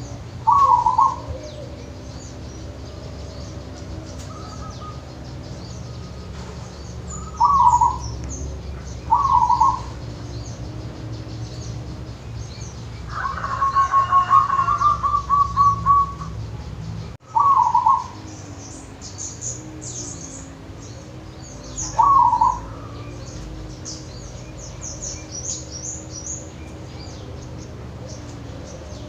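Zebra dove (perkutut) cooing: short coo phrases every few seconds, and a longer, rapidly rolling trill of coo notes midway. Faint high chirps of other small birds come in during the second half, over a steady low hum.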